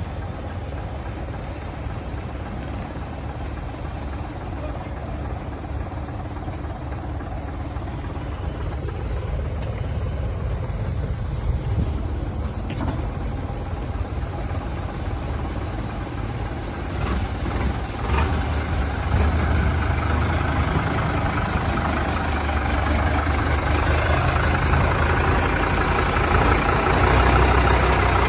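Heavy vehicle engine idling with a steady low rumble, growing louder about two-thirds of the way in, with a few faint clicks.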